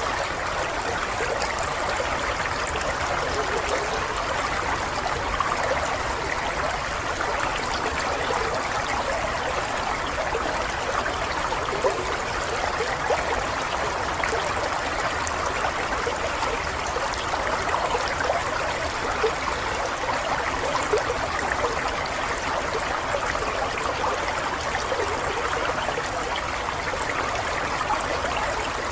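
Running water flowing and babbling steadily, with fine splashing and no breaks.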